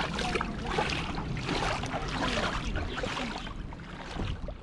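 Shallow stream running over rocks, with a low wind rumble on the microphone and many short chirps on top.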